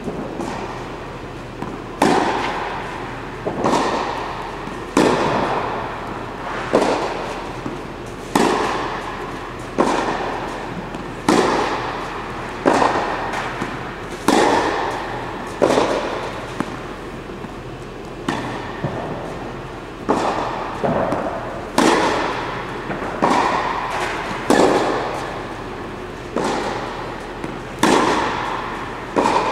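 Tennis balls struck by rackets in a steady rally, a sharp hit about every second and a half, each one echoing in an indoor court hall.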